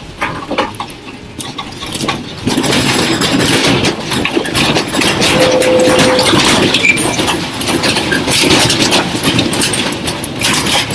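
A room shaking in a powerful earthquake: a rumble full of rattling and clattering that jumps up loud about two and a half seconds in and keeps going.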